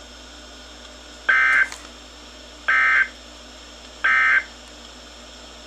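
Three short bursts of warbling two-tone NOAA Weather Radio SAME data, about 1.4 s apart. This is the Emergency Alert System end-of-message code that closes the tornado warning broadcast.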